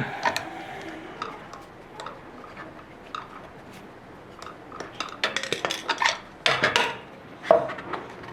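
Metal tools and small metal parts clinking and knocking as an electric scooter's front wheel hub is taken apart by hand: scattered clicks that come thicker and louder past the middle.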